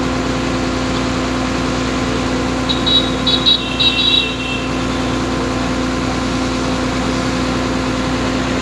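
Steady machine hum from a running motor with a constant drone, and a few short high chirps about three to four seconds in.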